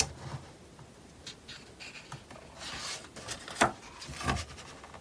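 Pages of a photo book being turned by hand: soft paper rubbing and rustling, with two sharp paper flaps about three and a half and four and a half seconds in.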